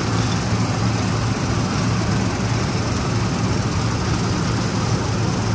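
A combine harvester's engine running steadily under load, with a constant low hum and an even wash of machine noise over it.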